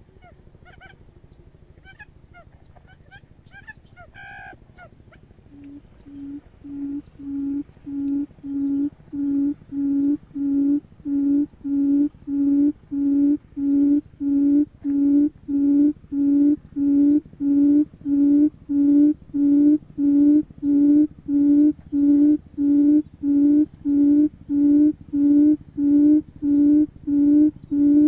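Buttonquail calling: a low hooting note repeated about one and a half times a second, starting about five seconds in and growing steadily louder. Faint chirps of small birds come before it.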